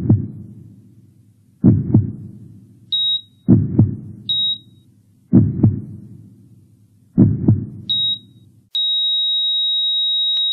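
Slow heartbeat, a double thump about every two seconds, with short high beeps from a cardiac monitor between the beats. Near the end the beats stop and the monitor gives one continuous high flatline tone, the sign that the trace has gone flat.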